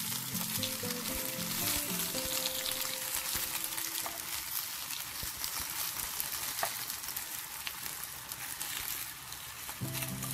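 Hot oil sizzling and crackling steadily, with many small pops, as pan-fried grass carp fish heads are lifted with tongs from the frying pan into a heated clay pot.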